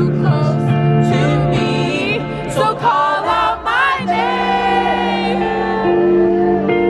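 A song: a sung melody over sustained synth chords and a steady bass line.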